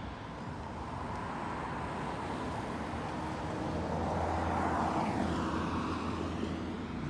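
Low-flying fixed-wing plane passing overhead, its engine noise swelling to a peak about five seconds in and then easing off with a sweeping, shifting tone.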